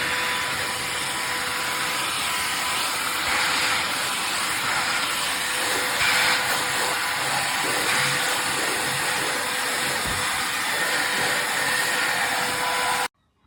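Bosch UniversalVac 18 cordless handheld vacuum running steadily, a whooshing airflow with a steady motor whine. It stops abruptly near the end.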